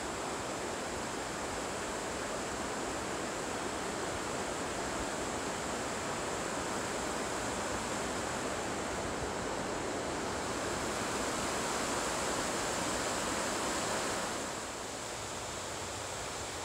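Steady rushing of a mountain creek's water, an even hiss, dropping a little in level about fourteen seconds in.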